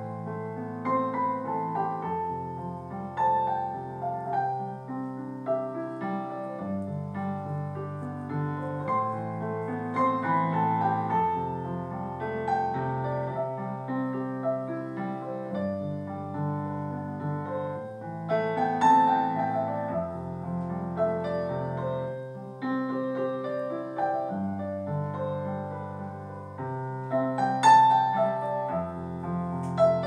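Background piano music: a slow piece with held bass notes changing about every two seconds under a melody.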